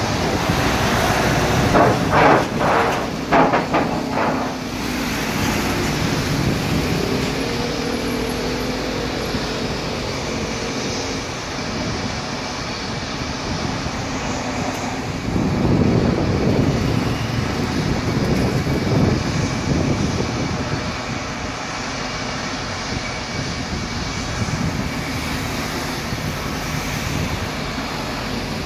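Taxiing Boeing 777 airliner's jet engines running at low power, a steady rumble mixed with road traffic noise. A few knocks come about two to four seconds in, and the noise swells louder around fifteen to twenty seconds.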